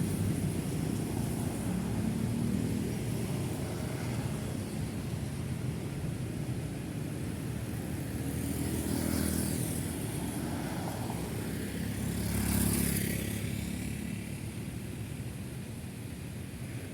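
City road traffic: a steady rumble of cars and motorcycles going by. Two vehicles pass close, about nine seconds in and again about thirteen seconds in, the second the loudest.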